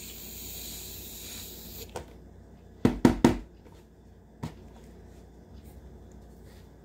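Aerosol shaving cream can hissing as foam is sprayed out for about two seconds, then a click and three sharp knocks about three seconds in, with another click later.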